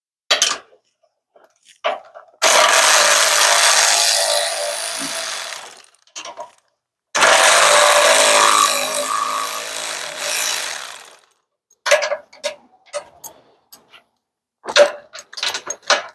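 Cordless power tool driving a 9/16 socket to loosen a pop-up camper winch's mounting bolts: two runs of a few seconds each, then scattered short clicks and knocks.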